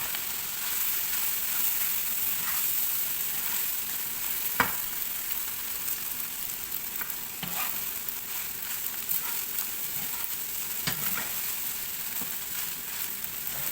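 Fried rice sizzling in a hot, oiled pan while being stirred, a steady frying hiss with a few knocks of the utensil against the pan, the loudest about four and a half seconds in.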